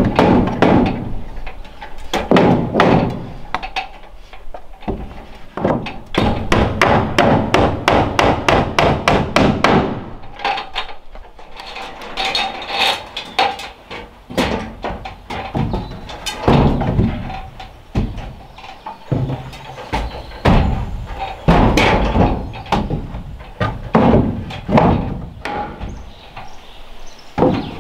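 Claw hammer striking wooden boards in a long series of blows, some single and heavy, with a quick run of lighter rapid strikes several seconds in.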